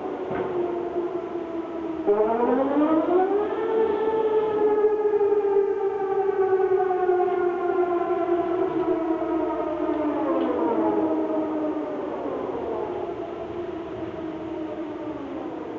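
Civil defence air-raid sirens sounding the Danish public warning signal during the annual siren test: the howl falls low, rises about two seconds in, holds high for several seconds, then winds down again from about ten seconds in and fades.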